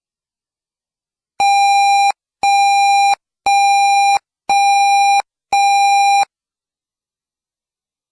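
Emergency Alert System alert beeps: five identical loud electronic beeps at one steady pitch, each under a second long and spaced about a second apart, announcing a weather warning.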